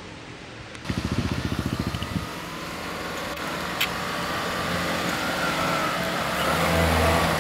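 Renault Duster SUV engine running under load as it drives over loose sand and dirt. It gets gradually louder and is loudest near the end as the vehicle comes closer. About a second in there is a second of rapid low fluttering.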